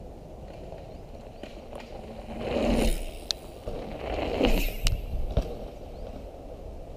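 Bikes riding a dirt jump trail: two swells of tyre noise on dirt a couple of seconds apart, with a few sharp clicks.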